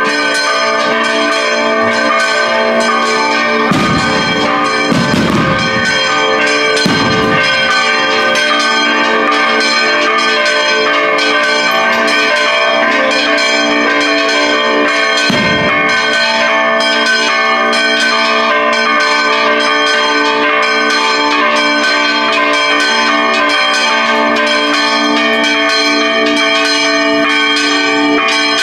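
Church bells of the Virgen de Guadalupe sanctuary pealing, several bells struck fast and continuously so their ringing overlaps. A few dull low thumps come about 4 to 7 seconds in and again around 15 seconds.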